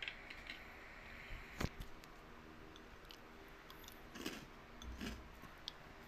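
Watermelon being bitten and chewed: a few scattered short, crisp crunches, the sharpest about a second and a half in, over a faint steady hiss.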